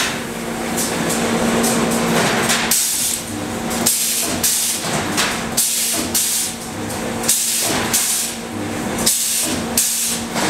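Pedal-operated wire-mesh welding machine cycling, its heads pressing down and welding the steel mesh in short noisy strokes about once a second, over a steady hum.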